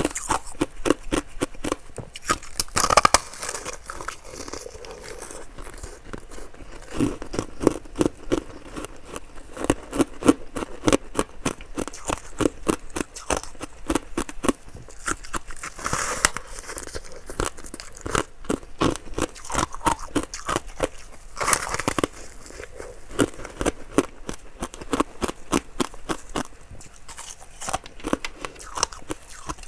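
Close-miked crunching and chewing of ice: a fast, unbroken run of crackly crunches, with a few louder bites about 3, 16 and 21 seconds in.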